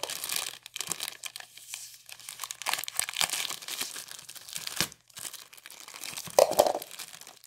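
Plastic packaging crinkling and tearing as fingers pick and pull at tight clear plastic wrap, in irregular crackles, loudest a little after six seconds in.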